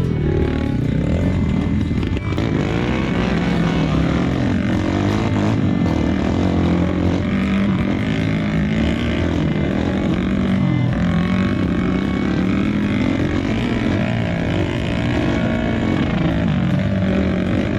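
Trail motorcycle engine running under load, revving up and down over and over so that its pitch keeps rising and falling.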